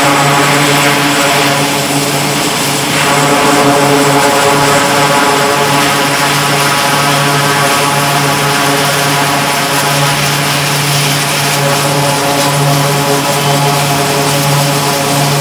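E-2 Hawkeye's twin Allison T56 turboprop engines running steadily as the aircraft taxis: a steady low propeller hum with a hiss over it.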